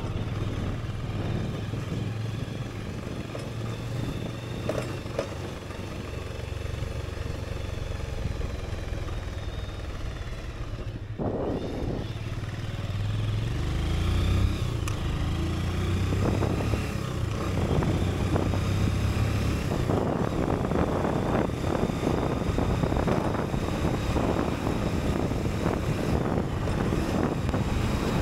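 Motorcycle engine running as the bike is ridden. About halfway through, the engine note rises and the sound gets louder, and it stays louder to the end.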